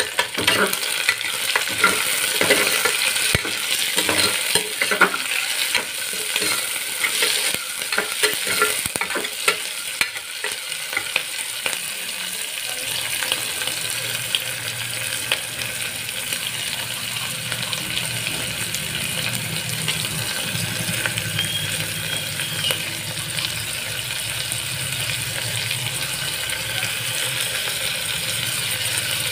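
Chopped onions and whole spices sizzling in hot oil in an aluminium pressure cooker, with a metal spoon scraping and clinking against the pot through the first half; after that the sizzle goes on steadily without the stirring.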